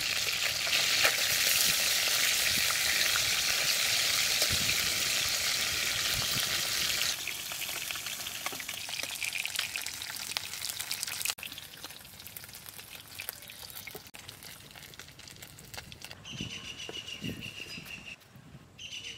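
Hilsa fish head and tail pieces frying in hot mustard oil in a kadai: a loud, steady sizzle that drops to a quieter crackle about seven seconds in, once most pieces have been lifted out, with a few light metal clinks of the spatula. A high trilling call comes in near the end.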